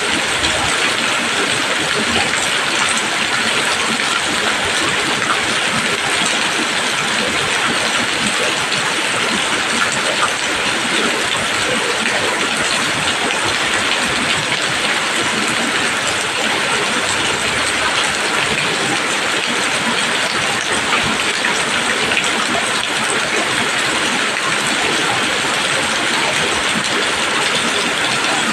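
Steady rain falling on leaves: a dense, even hiss of many drops.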